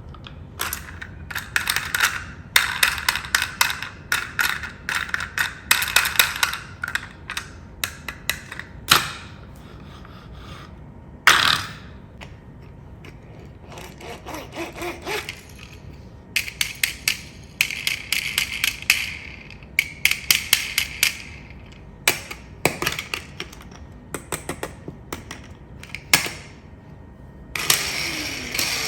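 Bursts of rapid clicking and rattling from small hard parts, in clusters with short pauses between them.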